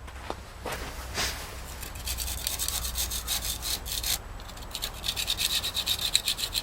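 Putty knife scraping carbon deposits off an engine's cylinder head in quick, repeated strokes, each a short hard rasp. The scraping picks up about two seconds in, pauses briefly in the middle and starts again.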